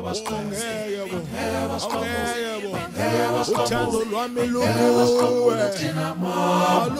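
Several voices singing together in harmony without instruments, with long held notes and sliding pitches.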